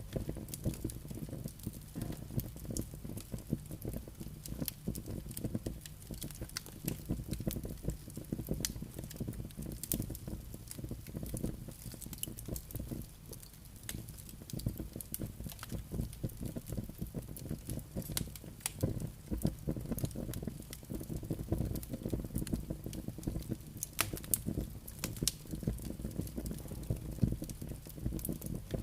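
Wood logs burning in a fireplace: a steady low rumble of flames with frequent sharp crackles and pops scattered throughout.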